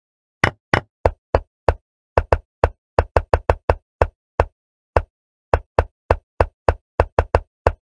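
Chess-piece move sound effect: a sharp wooden click for each move as a game is replayed quickly, about two dozen clicks at an uneven pace with total silence between them.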